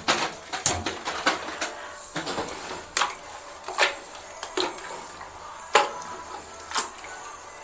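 Irregular light clicks and knocks, about one or two a second, from hands pressing and working plaster-soaked sisal fibre onto the edges of a hole in a plaster ceiling.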